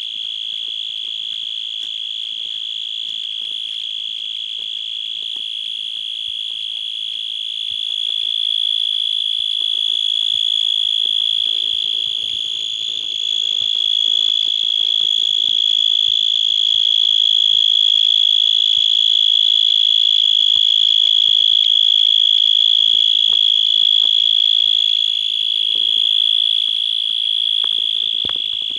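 An insect's continuous high-pitched trill, unbroken and steady in pitch, growing louder after several seconds and easing off a little near the end.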